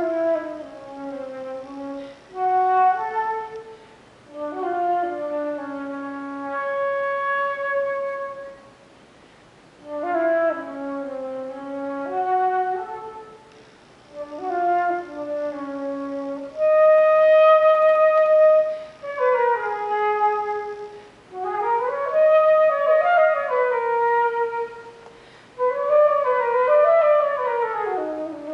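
Unaccompanied solo flute playing short melodic phrases with brief pauses between them. In the second half several notes slide up and down in pitch.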